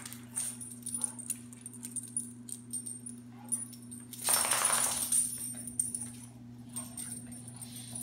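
Two dogs play-wrestling: scrabbling paws and scuffling bodies, with a louder, rougher burst of scuffling about four seconds in.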